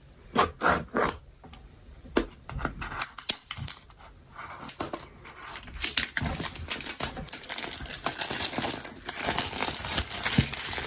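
Scissors cutting into a product box's packaging: a few sharp snips and clicks, then from about halfway a continuous crinkling and tearing as the wrapping is cut and pulled open.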